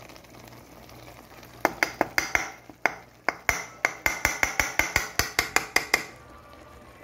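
Spoon clinking and scraping against the cooking pot as spices are stirred into spinach and potatoes: quiet at first, then from about two seconds in a quickening run of sharp clinks, about six a second, that stops near the end.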